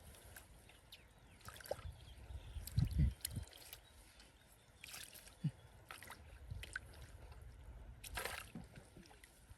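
Shallow muddy water sloshing and splashing in irregular bursts as hands and feet work through a rice-field paddy, with the heaviest slosh about three seconds in.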